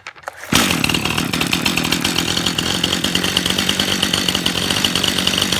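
Stihl MS 181 C two-stroke chainsaw engine catching about half a second in and then running steadily.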